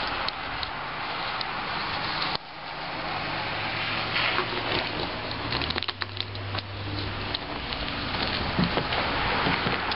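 Young Siberian husky mouthing and chewing a wooden stick in the snow: scattered crackles and snaps of the wood, over a steady hiss.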